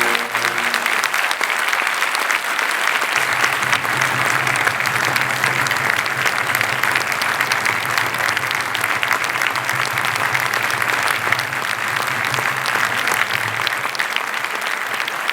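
Audience applauding steadily, just after a wind band's final brass chord dies away in the first second.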